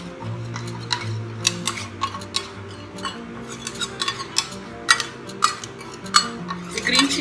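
Metal spoon scraping a small steel bowl and clinking against its rim and the glass bowl as an oil-and-spice dressing is emptied onto chopped mango: irregular sharp clicks, a few a second.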